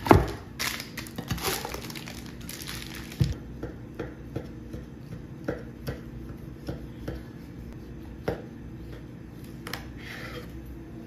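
A hard knock of a glass dish on a wooden board, then a sheet crinkling for a few seconds, then a kitchen knife cutting through set chana dal halwa and tapping the wooden board, about two light knocks a second.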